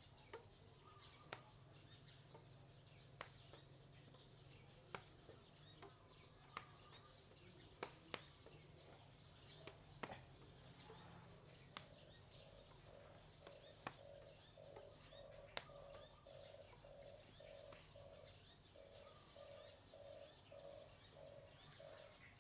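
Quiet background with faint sharp clicks every second or two, and from about halfway on a bird calling in a repeated pulsing note, about two a second.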